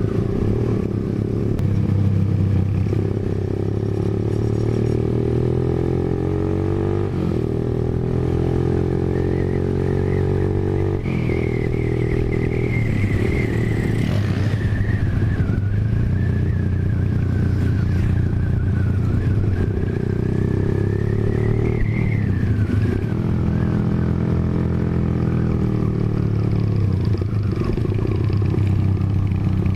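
Motorcycle engine running under way, its pitch climbing as it accelerates and dropping at gear changes several times.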